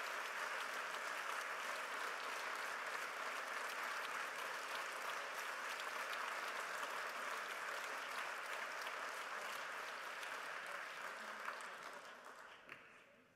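Audience and people on stage applauding, a steady sustained clapping that dies away over the last two seconds.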